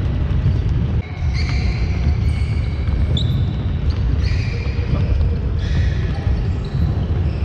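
Many feet thudding on a hardwood sports-hall floor, with short high sneaker squeaks several times. The hall's echo is on the sound.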